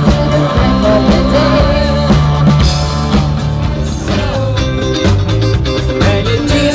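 Live dance band playing an upbeat song through a PA, with a steady drum beat, amplified guitar and a singer's voice carrying the melody.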